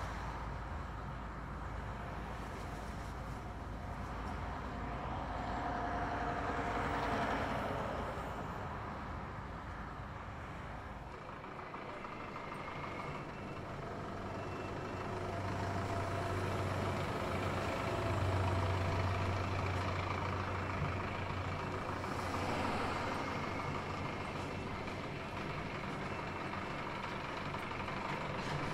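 Truck on the move: steady engine and road noise that swells twice, about a quarter of the way in and again about three quarters of the way in, with a low steady hum in between.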